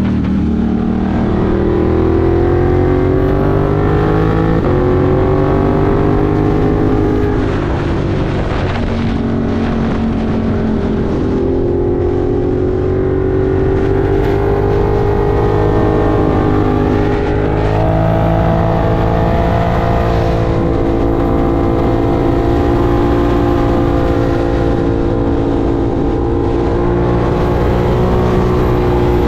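Ducati Monster 1200 R's L-twin engine pulling along at road speed, its pitch climbing and easing off as the throttle opens and closes, with short dips around one, eight and eleven seconds in.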